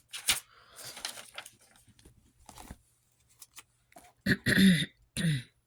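Paper and envelopes being handled: a sharp click, then scattered rustling and small taps. About four seconds in comes a short murmured voice sound.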